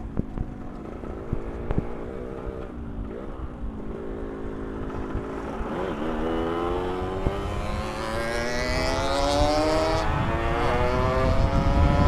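Two-stroke motorcycle engine under way, its pitch dipping twice and then climbing steadily as it accelerates and grows louder, with wind buffeting the microphone near the end.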